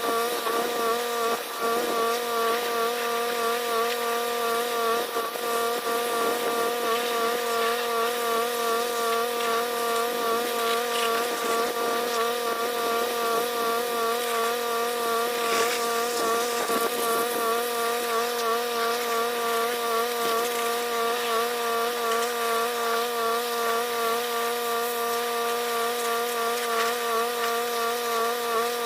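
Pressure washer running steadily: a constant droning pitch from its engine and pump, with the hiss of the water jet spraying.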